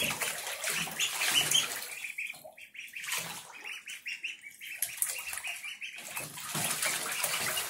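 A group of ducklings peeping over and over in high, short calls, several a second, while they swim and paddle in shallow bathtub water, with light splashing beneath.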